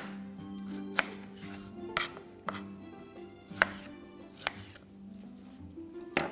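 Knife slicing strawberries on a plastic cutting board: about seven sharp taps of the blade striking the board, irregularly spaced, over soft background music.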